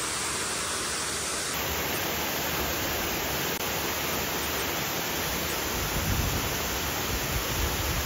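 A large waterfall rushing: steady, even noise of falling water, with a low rumble building about six seconds in.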